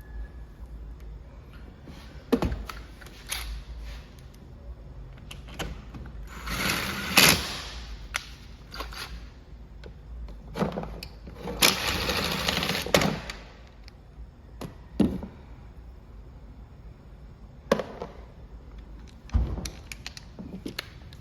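Hand work on an Echo string trimmer during a clutch replacement: scattered clicks and knocks of tools and metal parts, with two longer scraping, hissing stretches about six and twelve seconds in.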